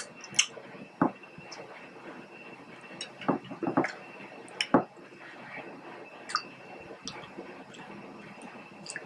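Close-up hand-eating sounds of cooked crab: fingers pulling meat from the shell, with scattered wet squelches, sharp clicks and chewing.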